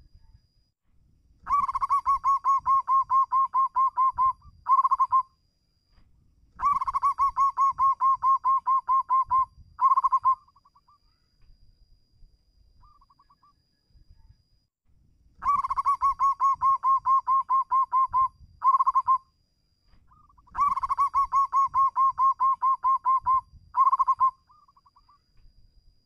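Zebra dove (perkutut) singing: four phrases, each a quick, even run of staccato cooing notes lasting about three seconds and closing with a short separate flourish, with pauses of a few seconds between phrases.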